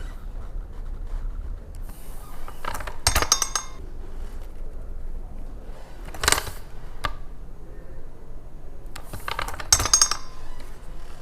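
Hand-operated Kelsey Excelsior tabletop letterpress being worked: three bouts of metallic clanking and clinking with a short ring, about three seconds apart, one for each stroke of the press.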